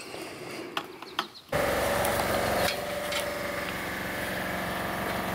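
A motor running steadily, cutting in abruptly about a second and a half in, with a few light knocks over it.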